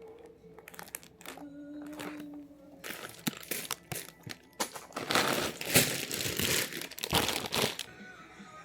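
Plastic LEGO parts bags crinkling and rustling, starting about three seconds in and stopping near the end, with soft background music.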